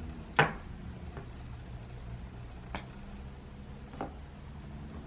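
Three short, sharp clicks or knocks over a low steady hum, the first about half a second in and much the loudest, the others fainter near the middle and near the end.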